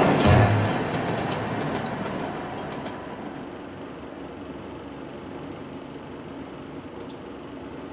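Electric commuter train moving along a station platform, its noise fading away over the first three seconds or so and leaving a steady low rumble of station background noise.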